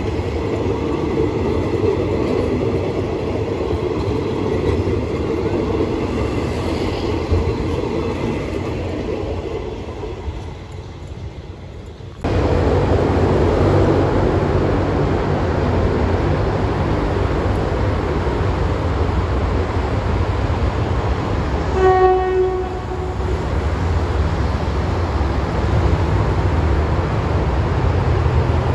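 Railway passenger coaches rolling past, the running noise fading as the train draws away. After a cut, a steady low rumble, with one short blast of a train whistle about two-thirds of the way through.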